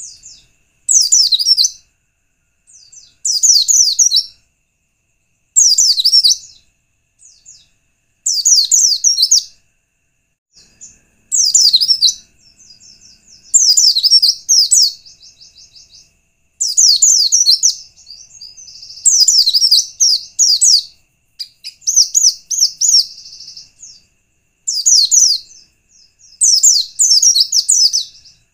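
White-eye (pleci) singing: loud bursts of rapid, high, down-slurred chirps, each about a second long, repeated every two to three seconds. It is a lure song meant to set other white-eyes singing.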